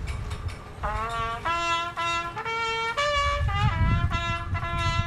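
A trumpet sounding a ceremonial bugle call: a string of short notes, about two a second, each sliding up into its pitch, leading into a long held note about four seconds in.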